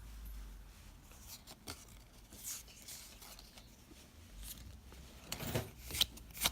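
Faint rustling and light clicks of trading cards and booster packs being handled, with a few sharper rustles near the end.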